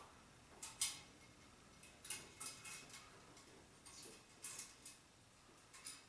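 Faint, irregular light metallic clicks and rattles, about eight in all, of BX armored cable being worked by hand through a metal cable connector.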